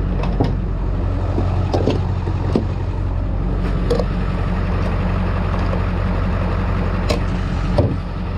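Truck engine running steadily, heard from inside the cab as a low, even drone, with a few faint clicks and knocks.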